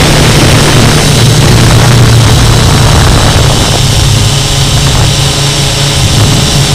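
Syma X8C quadcopter's motors and propellers humming loudly, heard from the camera mounted on the drone itself, with a steady low drone and a slight shift in pitch about four seconds in as the motor speed changes.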